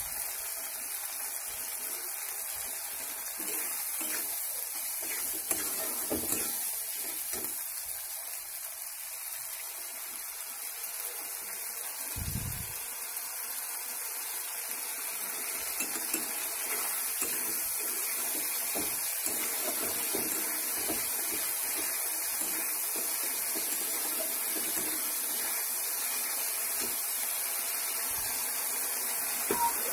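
Curry base of spices and tomato frying and bubbling in oil in a kadai: a steady sizzle, with a few sharp spatula clicks against the pan.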